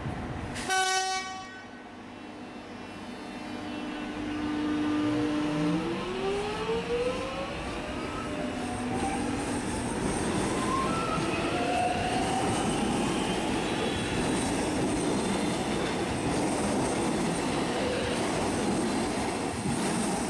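Alstom X'trapolis electric multiple-unit train gives a short horn blast about a second in, then pulls away. Its traction motors whine in several tones that rise in pitch as it accelerates, over a growing, steady rumble of wheels on the rails as the carriages pass.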